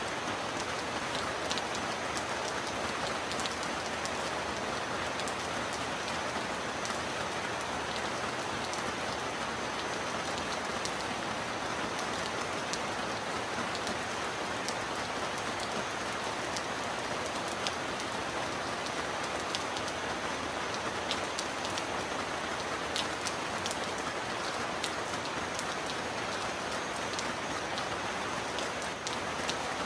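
Steady heavy rain: an even hiss of falling rain with scattered sharp ticks of individual drops hitting a surface.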